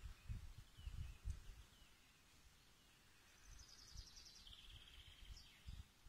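Faint songbird song: a few short falling notes in the first second and a half, then two quick trills of rapidly repeated notes about three and a half to five and a half seconds in. Low rumbling on the microphone comes and goes underneath.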